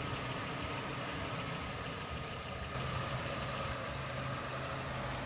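Steady low hum of an idling engine under faint background noise.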